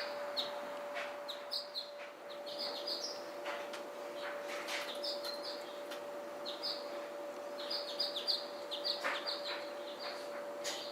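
A flock of small birds at a seed feeder chirping, with many short high chirps overlapping throughout and scattered sharp clicks. A steady low hum runs underneath.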